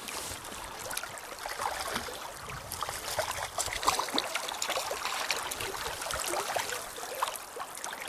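River current gurgling and splashing close by, with many small irregular splashes. About four seconds in, a hooked grayling splashes at the surface.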